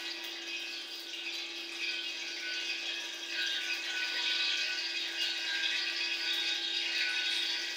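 Steady kitchen background noise: a constant hum with an even hiss over it, growing a little louder after about three seconds.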